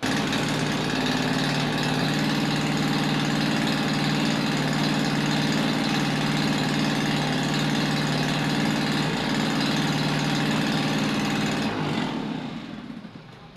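A motor starts abruptly and runs at a steady speed for about twelve seconds, then fades and winds down.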